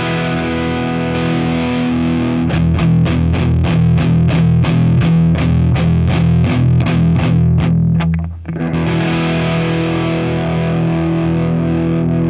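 Electric guitar improvisation played through a Wampler Ego compressor pedal into a Kemper profiling amp set to a Marshall amp profile: a held chord, then a run of quickly picked notes at about four a second, a brief break, and another long ringing chord.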